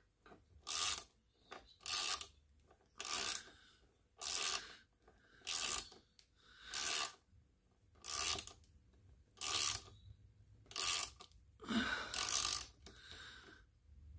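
Ratchet spanner clicking in short bursts on each return stroke, roughly once a second, as an M6 bolt is wound in to draw up and set a rivet nut insert.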